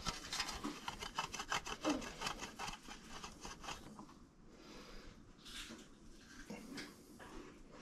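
Block of cheese being grated on a metal box grater: quick rasping strokes that die away after about four seconds.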